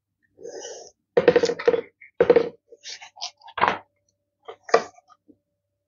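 Pages of a large hardcover textbook being turned and handled: a series of short paper rustles and soft knocks.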